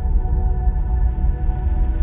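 Space-ambient electronic music: several long held tones over a deep, steady rumble in the bass, unchanging and without a beat.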